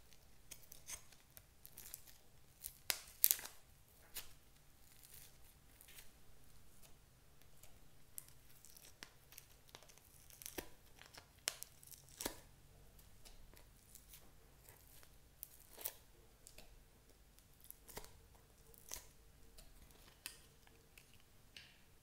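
Fingers squeezing, pulling and stretching sticky slime, some of it studded with foam beads: scattered faint crackles, pops and sticky tearing sounds, the loudest cluster about three seconds in.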